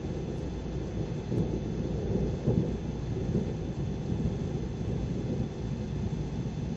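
Thunder rumbling, swelling in several rolls and loudest about two and a half seconds in.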